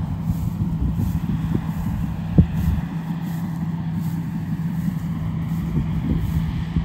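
Rice combine harvester's diesel engine running steadily while harvesting, a low rumble with a steady hum, and a single knock about two and a half seconds in.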